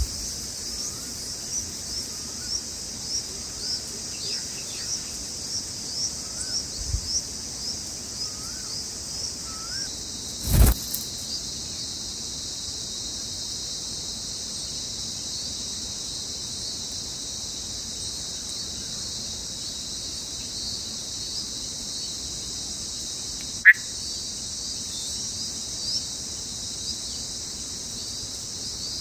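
Crickets trilling in a steady high chorus, with short high chirps repeating about twice a second through the first ten seconds. A single thump comes about ten seconds in, and a sharp click about six seconds before the end.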